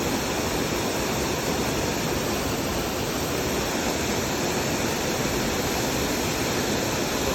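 Steady rush of falling water from a waterfall pouring into a stream.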